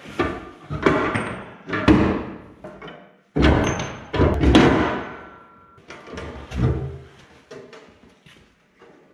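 Heavy steel clanking and knocking, each strike ringing briefly: a pry bar and pins working the dozer blade free of a mini excavator, and the steel blade frame shifting on a concrete floor. Strikes come close together for the first five seconds or so, then thin out.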